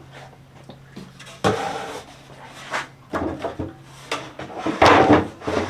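Wooden pieces being handled and shifted about: a string of knocks and scrapes, loudest in a cluster about five seconds in.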